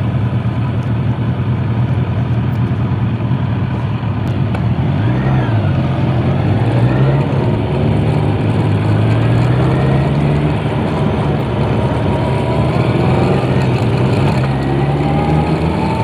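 Two Kawasaki 900 cc inline-four motorcycles, a GPZ900R Ninja and a ZL900 Eliminator, running together at road speed with a loud exhaust note. The engine pitch dips about five seconds in, then climbs steadily for several seconds as they accelerate before easing off, and rises again near the end.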